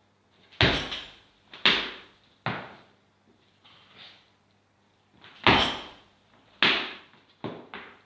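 Heavy thuds of weights hitting the gym floor in two runs of three impacts, each run coming quicker as it goes, like a loaded barbell dropped onto a lifting platform and bouncing.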